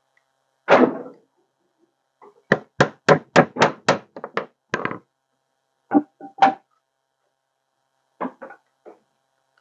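Small hammer driving a nail into a wooden beehive frame: a thump, then a quick run of about eight blows, then a few spaced taps, lighter near the end.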